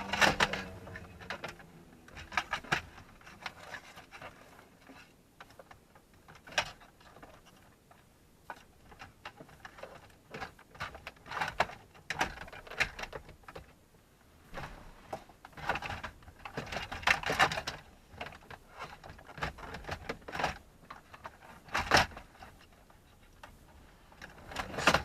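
Irregular plastic clicks, taps and knocks with rustling between them: hands working the car's plastic dashboard trim panels and cigarette lighter surround.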